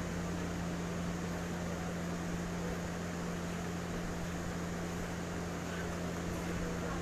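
Steady machine hum: a constant low tone over an even hiss, unchanging throughout.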